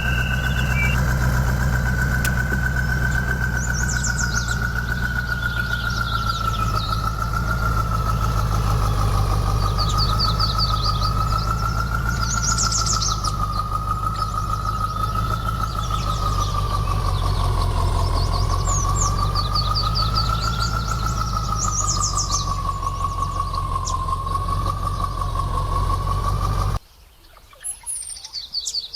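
An engine idling steadily, with a high whine over it that wavers slightly in pitch, then cutting off abruptly near the end. Small birds chirp in short trills throughout.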